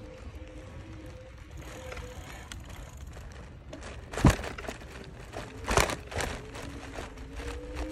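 Bicycle ridden fast over pavement: a steady rumble of tyres and wind with a faint steady whine, and two loud clattering jolts about four and six seconds in as it bumps over the paving, the front basket rattling.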